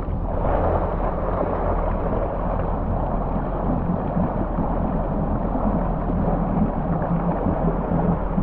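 Supercharged Yamaha GP1800R SVHO jet ski engine running steadily at low speed, with water rushing and splashing along the hull.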